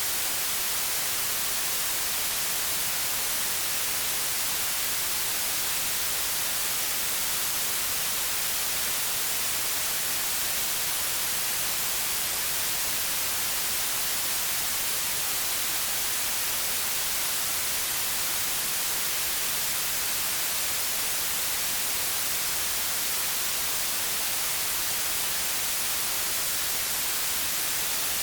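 Steady white noise: an even, unbroken hiss, brightest in the treble, with no change in level.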